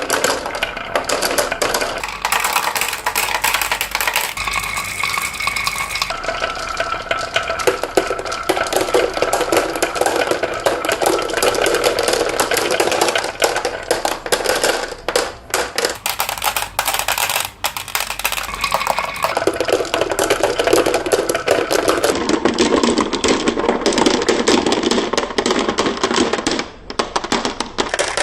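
Many marbles rolling and clattering down wooden marble-run tracks, a dense continuous rattle of small clicks and knocks that shifts in tone every few seconds.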